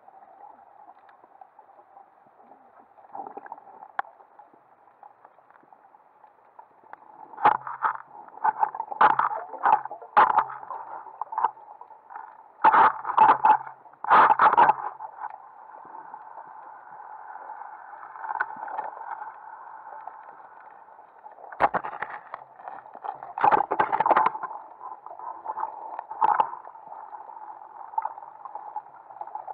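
Muffled underwater noise picked up by a camera housed on a speargun: a steady dull wash, broken by two spells of sharp knocks and rattles, from about a quarter of the way in to about halfway, and again through much of the last third.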